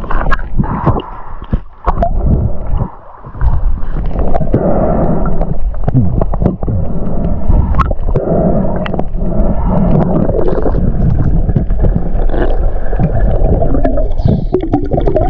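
Muffled underwater water noise heard through a submerged action camera's housing: continuous rushing and gurgling as the diver swims over the reef, with scattered sharp clicks.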